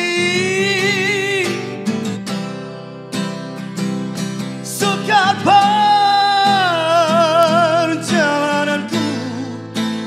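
A man singing two long held notes with vibrato, the second higher, rising in about five seconds in, over a strummed steel-string acoustic guitar.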